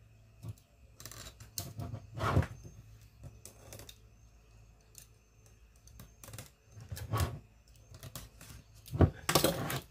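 Snap-off utility knife cutting open a small cardboard box along its seal: irregular short scrapes and clicks of the blade against the box. The loudest scrapes come about two and a half seconds in and again near the end.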